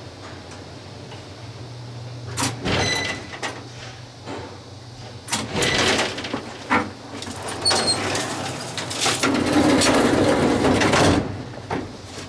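A 1920s Otis elevator car's steady hum ends with a clunk about two seconds in as the car stops. Then the car's collapsible metal scissor gate is unlatched and slid open with several metallic clanks and rings, followed by a long loud rattle near the end.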